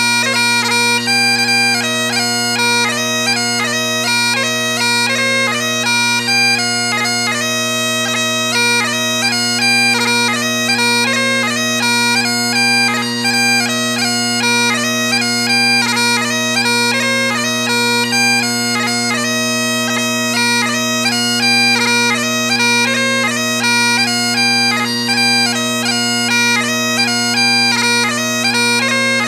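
Bagpipes playing a quick tune, the chanter's melody moving from note to note over steady, unbroken drones.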